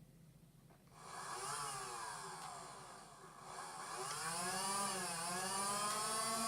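Nerf Rival Nemesis blaster's electric flywheel motors spinning up on a trigger pull, a whine whose pitch rises and falls. It starts about a second in, sags around three seconds, then climbs again and holds.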